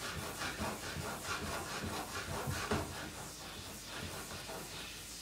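Balsamic glaze reducing on high heat in a skillet, sizzling and bubbling: a steady hiss with many small irregular pops.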